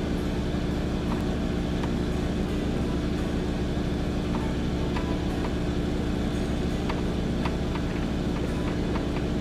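Sailboat's inboard engine running steadily under power, a constant low hum with a steady drone, with a few faint ticks.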